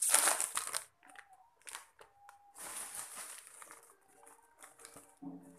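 Plastic snack packet crinkling loudly as it is torn open, then quieter rustling and crinkling as the wrapper is handled over a clear plastic bag of puffed snacks.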